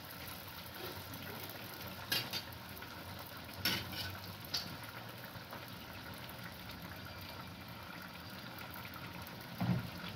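Food cooking in a pot, a steady sizzling and bubbling hiss, with a few clinks of a utensil against the pot about two to five seconds in and a duller knock near the end.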